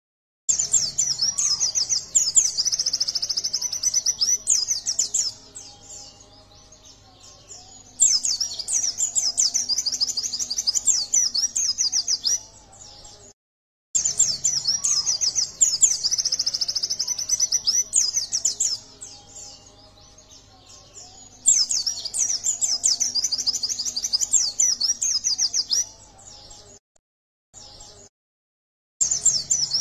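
A yellow-breasted white-eye (pleci dada kuning) singing a fast, high twittering song in bursts of about four to five seconds, four times, with short pauses between them.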